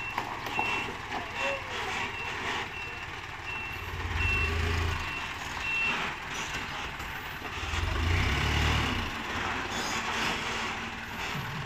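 Dump truck's reversing alarm beeping steadily over its diesel engine running; the beeping stops about six seconds in. The engine grows louder twice, about four and eight seconds in.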